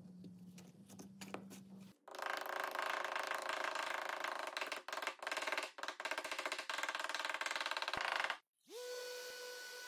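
A low steady hum, then a long loud stretch of music-like sound with drum-like hits, broken by a few short gaps. Near the end a random orbital sander spins up with a rising whine and settles into a steady whine.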